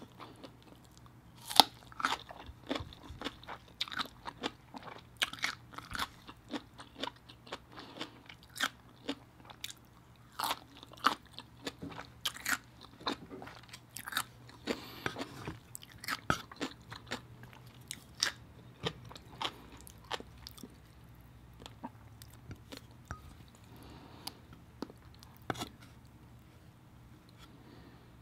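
Close-miked chewing and crunching of a raw cucumber stick, with wet mouth clicks. The crunches come thick and fast for about the first twenty seconds and thin out toward the end.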